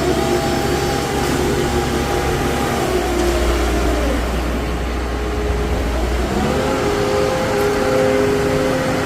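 Site concrete mixer's engine running steadily, its pitch sagging a few seconds in and picking back up about six seconds in as the load changes.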